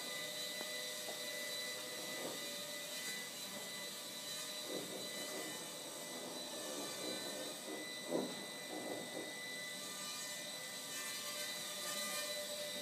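Walkera Ladybird V2 micro quadcopter's small electric motors and propellers running, a steady high-pitched whine.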